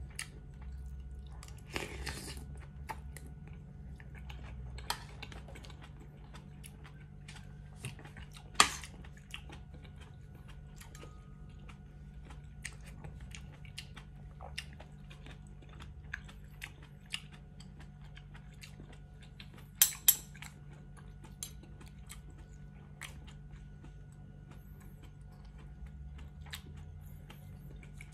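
Close-up chewing and smacking of bulalo beef and rice, with many small mouth clicks. A metal fork and spoon clink now and then on a ceramic plate: one sharp clink about a third of the way through and two in quick succession about two-thirds through.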